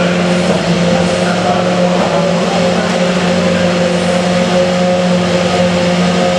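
A steady engine drone holding one constant pitch, with a hiss of noise over it. It does not rise or fall the way a passing car does.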